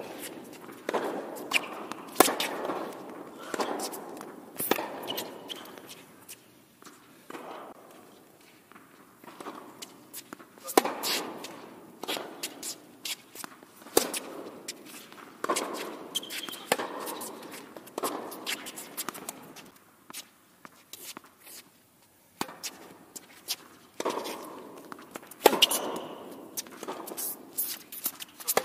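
Tennis rally on an indoor hard court: sharp racket-on-ball hits and ball bounces, each echoing around the large covered hall, with the players' footsteps on the court. The hits come in clusters, with two quieter lulls between points.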